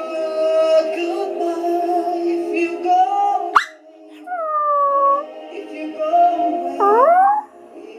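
A small white terrier howling along to a song playing in the room: a drawn-out falling howl about four seconds in and a short rising one near the end, over the steady music, with a sharp click just before the first howl.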